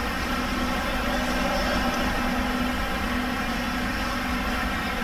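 Steady droning background hum of a large indoor hall, with no clear impacts or speech.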